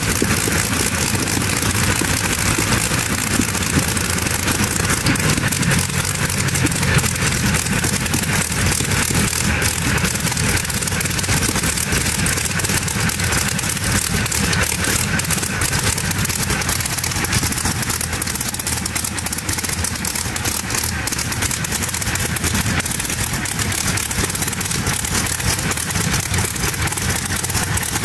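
Rolls-Royce Griffon Mk 58 V12 aero engine in a tractor-pulling machine idling steadily, with no revving, on a test run after its supercharger clutch was rebuilt and a new fuel distribution fitted.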